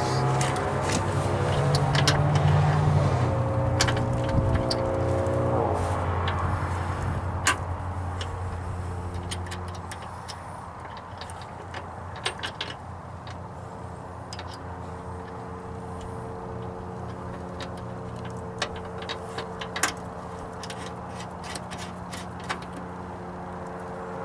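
An engine runs steadily, its pitch shifting a couple of times early on, then settles to a quieter hum about ten seconds in. Scattered light metallic clicks come from a nut and washers being fitted by hand onto a truck cab mount bolt.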